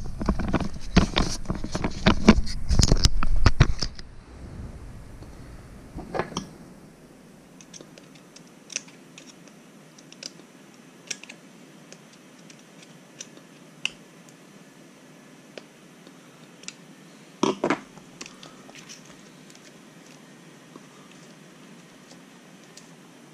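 Loud handling noise with knocks for about the first four seconds as the camera is moved. Then scattered light clicks and taps of small parts and wires being handled at an RC rock crawler's steering servo, with a louder cluster of clicks about 17 seconds in.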